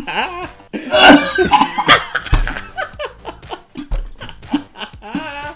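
A man coughing and gagging into a plastic bucket on a mouthful of canned escargot, the loudest fit about a second in, while another man laughs hard.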